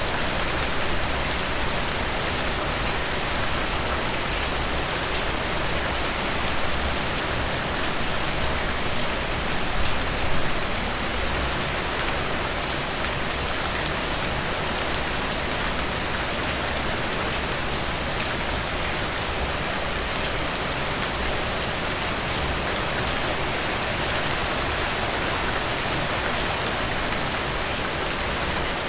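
Heavy rain falling steadily on a surface: a dense, even hiss with individual drops pattering through it and a couple of slightly louder gusts about ten seconds in.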